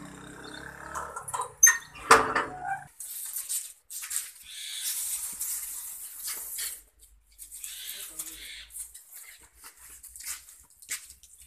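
A door or gate latch clanks a couple of times, about 1.5 to 2 seconds in. Then a long plastic water hose is dragged and gathered into coils over a concrete floor, rustling and scraping in long stretches, with small knocks.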